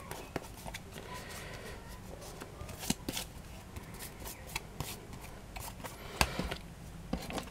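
Hands handling and smoothing a paper-covered CD: faint rustling of paper and card with many small scattered clicks and taps.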